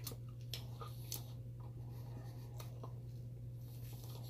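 Faint, scattered clicks of pizza crust being chewed, over a steady low hum.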